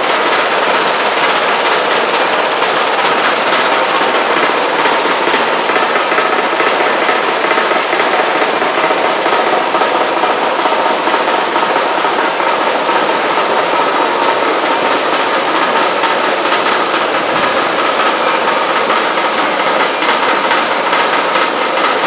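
Machinery of a pasteurization line for pouch-packed pickled vegetables running steadily: conveyors and stainless tanks making a continuous din, with a couple of faint steady whining tones over it.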